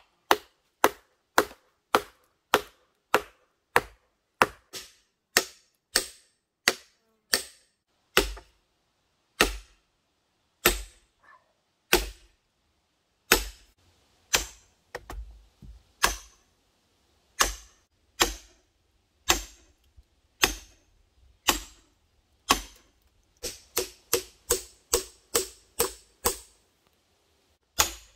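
Hammer blows, metal on metal, driving axe heads and wedges into a log to split it lengthwise. Sharp single strikes, about two a second at first, then slower, thuddier sledgehammer blows on axe heads set along the log, coming quicker again near the end.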